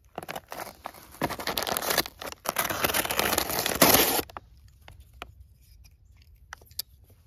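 A pocket knife slitting and tearing open paper packaging, with crinkling, for about four seconds, then a few light clicks and handling noises.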